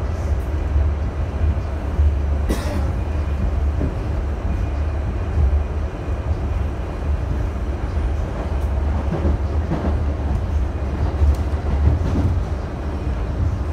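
An R68A subway car running along the track, heard from inside the car: a steady low rumble of wheels and running gear. There is one sharp click about two and a half seconds in.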